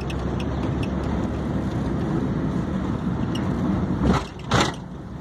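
Car engine and road noise heard from inside the cabin while driving, a steady low rumble. About four seconds in, two brief louder sounds half a second apart, after which the rumble eases off slightly.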